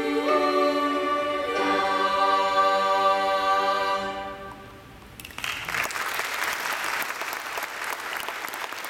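High-school chorus of mixed voices holding the closing chord of the hymn, which fades away about four seconds in. About a second later an audience breaks into applause, which continues to the end.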